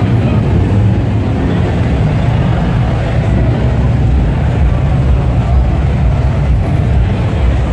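Deep, steady exhaust rumble from modified cars driving slowly past one after another: a lowered black sedan with a large single exhaust tip, then a Subaru Impreza hatchback.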